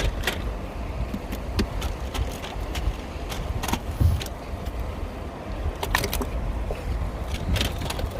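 Steady low rumble of wind on the microphone aboard a small fishing boat, with scattered short knocks and rattles, the sharpest about four and six seconds in.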